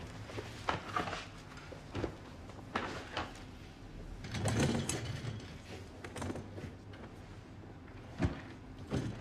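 Scattered clicks and knocks of laboratory equipment being handled, with a louder rustling clatter about halfway through and a sharp click near the end, over a low steady hum.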